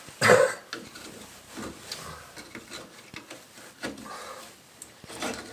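Metal clicks and scraping as the springs and clips of a drum brake shoe assembly are worked loose by hand. A short loud burst comes near the start.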